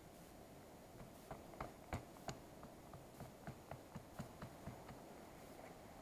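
Light wooden clicks and scrapes from a stick being worked by hand, a run of short irregular ticks about three a second that starts about a second in.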